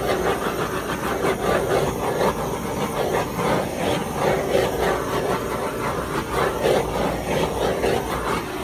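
Hand-held butane torch burning with a steady rushing hiss as it is swept over wet acrylic paint.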